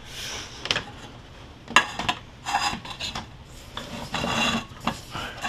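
PEX plastic water tubing scraping and rubbing against wood as it is pushed up through a tight hole, in several short rasping bursts with a few sharp clicks.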